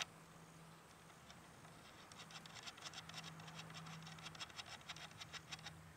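Faint, quick scratching and ticking of fingers and small metal parts as the FX Smooth Twist X barrel insert and its threaded plug are worked into the air rifle's shroud. A single click at the very start, and the scratching is busiest from about two seconds in, over a faint low hum.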